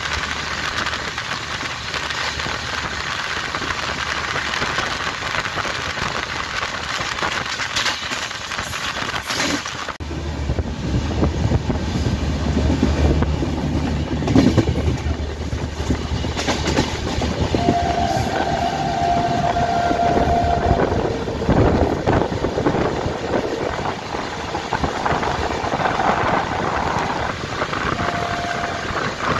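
Electric double-decker express coach running at speed, heard from inside: a steady rumble and rattle of wheels on the track. The rumble grows heavier about a third of the way in. A faint held tone sounds twice, about two thirds of the way through and again near the end.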